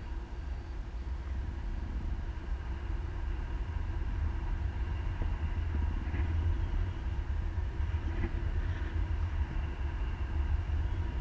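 Wind rushing over an action camera's microphone during a tandem paraglider flight: a steady low rumble that grows a little louder partway through.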